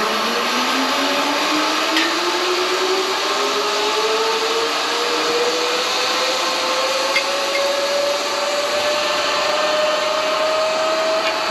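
Zipline trolley pulleys running along the steel cable, with a whine that rises steadily in pitch as the rider picks up speed, over a constant rushing noise.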